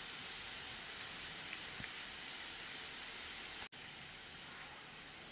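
Thinly sliced onions deep-frying in hot oil, a steady sizzle, broken by a brief dropout a little past the middle and then carrying on slightly quieter.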